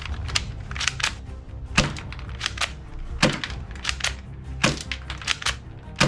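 A series of sharp clicks and clacks, four louder ones about a second and a half apart with many lighter ones between, over background music.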